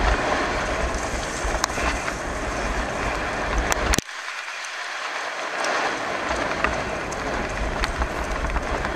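Wind rumbling on the microphone and tyres rolling over a wet gravel track while a bike is pulled along at speed, with scattered small clicks. About four seconds in, the low rumble cuts out suddenly and builds back up over the next couple of seconds.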